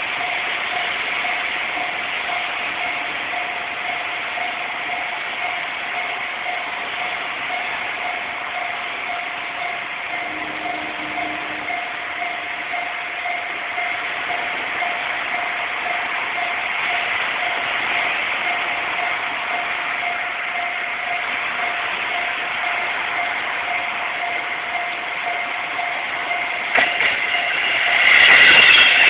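Japanese railroad crossing warning bell dinging in an even, rapid repeat over steady street noise. It stops near the end, and a louder rush of noise rises.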